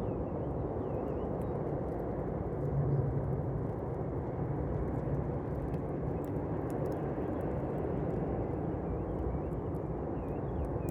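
Campfire burning, with faint scattered crackles and pops over a steady low rumble. Faint chirps come in near the end.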